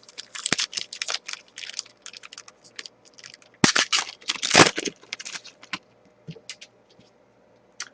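A trading-card pack's wrapper being torn open and the cards inside handled: a run of short crinkles and crackles, with a louder burst of tearing about four seconds in.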